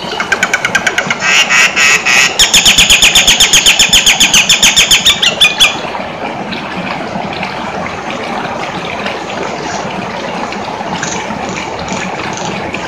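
Nias hill myna singing: a rapid run of loud, repeated pitched notes, about eight a second, lasting some five seconds, then softer calls.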